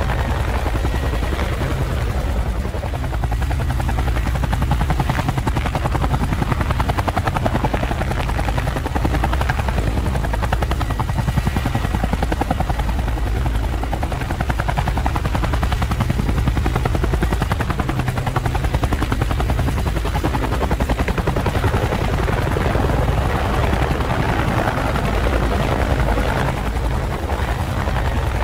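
Camera drone's propellers whirring steadily, with a deep rumble and a fast, even flutter.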